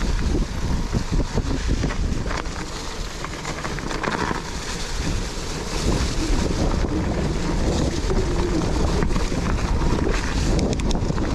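Wind buffeting the action camera's microphone over the rumble of a mountain bike riding a dirt trail, with scattered rattles and knocks from the bike.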